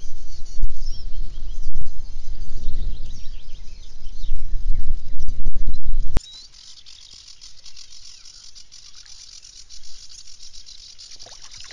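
Wind buffeting the camera's microphone: a loud, gusting low rumble that cuts off abruptly about six seconds in. After it, birds chirp and sing over a quiet background.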